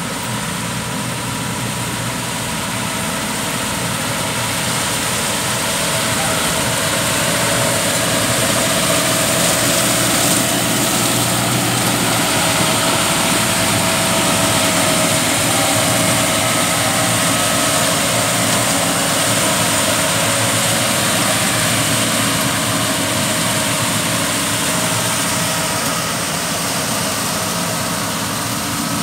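Crown Komodo CTC 750 tractor's diesel engine running steadily under load while its rear rotary tiller churns wet paddy mud. It grows a little louder over the first few seconds and then holds even.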